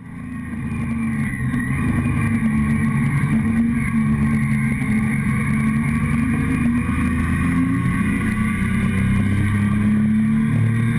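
Motorcycle engine running steadily under way, heard from a tank-mounted camera with wind noise; the sound fades in over the first second or two.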